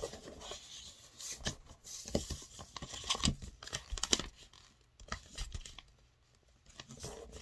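A sheet of A4 paper rustling and crinkling in irregular crackles as its corners are folded in and creased into triangles.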